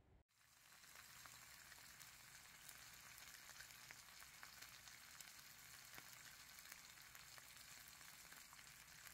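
Whole small fish frying in oil with garlic in a stainless steel pan: a faint, steady sizzle dotted with fine crackling pops, starting abruptly just after the opening moment.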